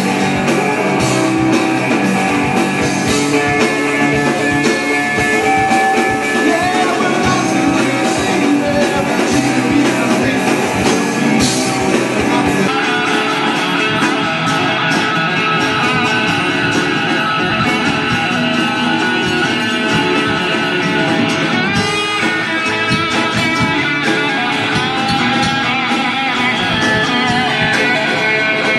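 Rock band playing loud live music, led by electric guitar. The sound changes abruptly about 13 seconds in.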